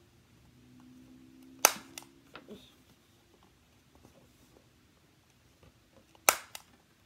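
Stiff black cardboard planner packaging being handled: a sharp snap or slap about a second and a half in, and a quick double snap near the end, with quiet handling between.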